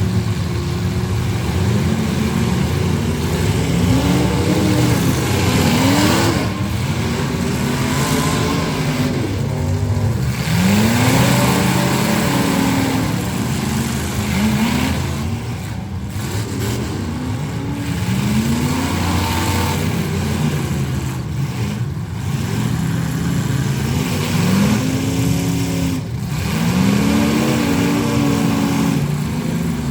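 Engines of full-size demolition derby cars running loud and revving over and over, each rev a rising whine every couple of seconds over a constant rumble of several engines at once.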